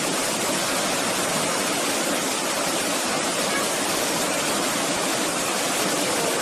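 Steady rush of water pouring down small rocky cascades into a river pool, an unbroken even hiss.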